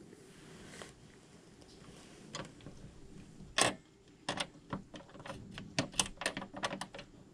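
Raccoons feeding at plastic bowls on a covered table: a scatter of sharp clicks and taps from claws and bowls, one louder knock about three and a half seconds in, then a quick run of clicks in the last few seconds.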